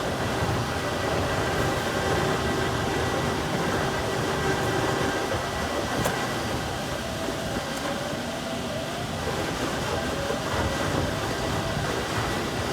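Steady mechanical din of a tire-shredding line, its conveyors and shredding equipment running continuously, with a few faint steady hums and one sharp click about six seconds in.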